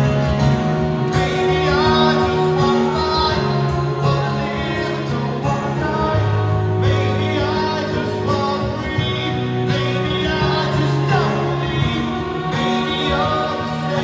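Live rock band playing through the PA: acoustic and electric guitars, bass and piano, with backing singers' voices over the band.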